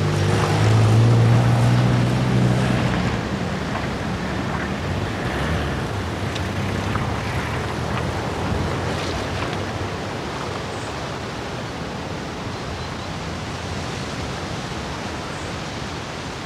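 Car engine pulling away, its note rising briefly about a second in, then fading out within a few seconds as it drives off. A steady rush of wind remains.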